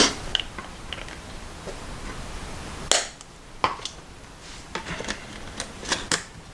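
Irregular sharp clicks and taps of small hard knife parts and tools being handled and set down on a work surface, a loud one at the start and another about three seconds in.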